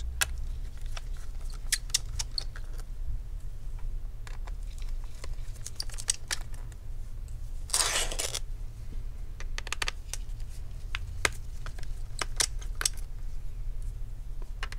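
Scattered small clicks and light metallic ticks as tiny Torx T5 screws are turned out of an aluminium laptop bottom cover with a hand screwdriver, with a brief scraping rustle about eight seconds in, over a steady low hum.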